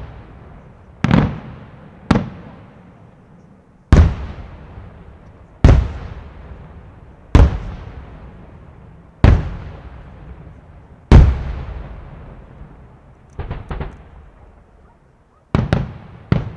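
Aerial firework shells bursting one after another, a sharp bang about every two seconds, each followed by a long rolling echo. Two quieter pops come after them, then a quick run of bangs near the end.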